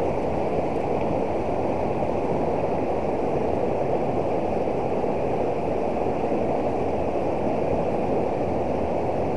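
Shallow river rushing over rocks and a low weir: a steady, even rush of water.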